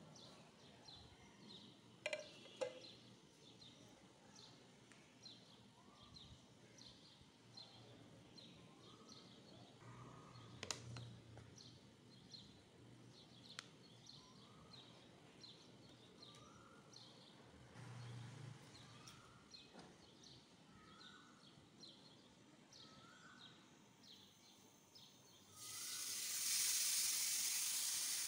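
Faint bird chirping: a steady run of short high chirps, with a short rising note repeating every second or two. Near the end a loud sizzle starts suddenly as marinated chicken breast goes into a hot frying pan.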